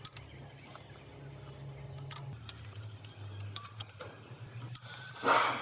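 Scattered light metallic clicks and clinks over a low steady hum, with a louder brief rush of noise about five seconds in.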